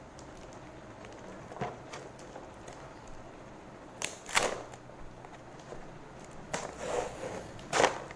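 Packing tape being ripped off a cardboard shipping box in several short tearing pulls, the loudest around halfway and near the end.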